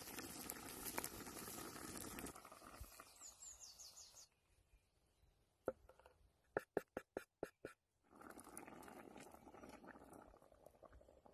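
Campfire crackling and hissing with a few short bird chirps. After a quiet moment, a knife chops garlic on a wooden board: one tap, then a quick run of about eight. Then a fire crackles again.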